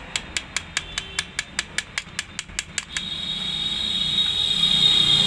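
Quick, light metal-on-metal taps, about five a second, as the rocker arm pin is worked into the cylinder head of a Bajaj Discover 125 with a steel rod. About three seconds in the tapping stops and a steady hiss takes over, growing louder.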